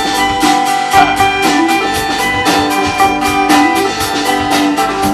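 A band playing an instrumental passage of a song between sung lines: held notes over a steady beat.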